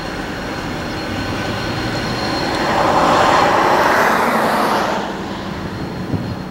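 Diesel freight locomotive approaching slowly, its engine running with a steady low hum. About halfway through, a broad rushing noise swells, then fades.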